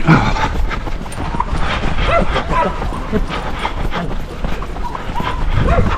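Crowd of runners moving off together: many footfalls on a path with scattered voices.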